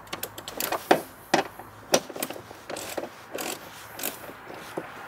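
Hand ratchet with a 10 mm socket clicking in short, irregular runs as it unscrews bolts.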